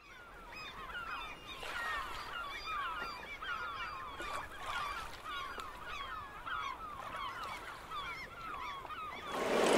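A flock of birds calling, many short calls that bend in pitch, overlapping several times a second; it fades in at the start.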